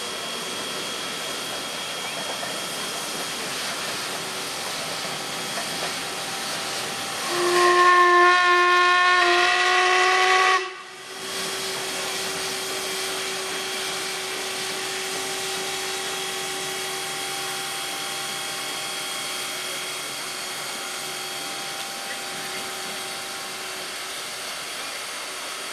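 Steady hiss of escaping steam from a ČSD class 498.1 'Albatros' steam locomotive, broken about eight seconds in by one steam-whistle blast of about three seconds that cuts off sharply, after which the hiss carries on.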